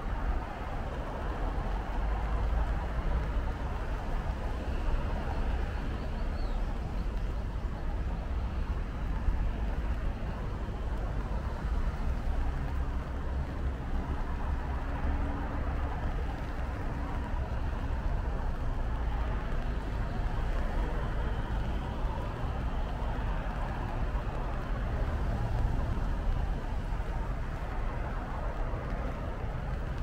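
Steady city ambience on a rainy day: a continuous low rumble of road traffic under an even hiss, with no distinct events.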